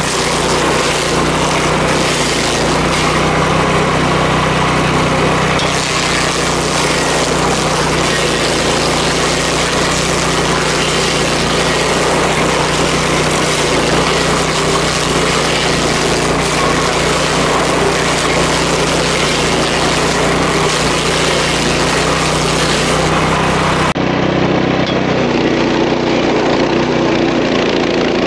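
Stump grinder running steadily under power, its engine drone overlaid with a dense noisy grinding hiss. Near the end the sound changes abruptly and the highest part drops away.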